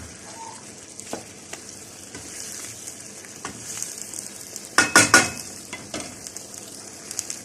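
Chicken pieces sizzling steadily in oil in a pan with onion, garlic and ginger, browning before water is added. About five seconds in, a utensil clacks against the pan several times in quick succession as the chicken is stirred.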